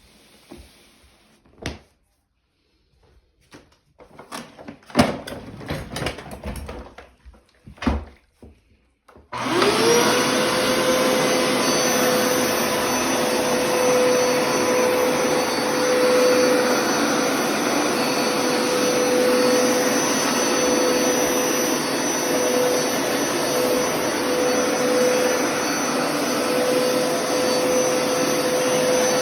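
Several seconds of knocks and handling clatter, then about nine seconds in a vacuum cleaner motor switches on, spins up quickly and runs steadily with a constant whine over the rush of air.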